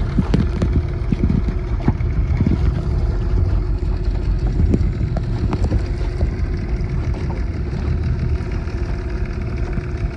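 Motorboat engine running steadily, a constant low rumble with a steady hum.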